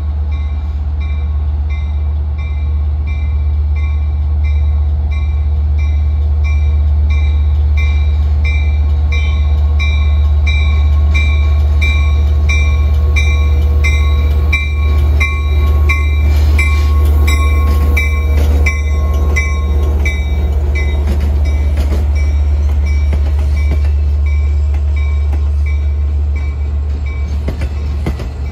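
LIRR DE30AC diesel-electric locomotive pulling bi-level coaches past at close range, its diesel engine running with a steady low drone. Wheels clack over the rail joints as the locomotive goes by about halfway through, while a bell rings about twice a second.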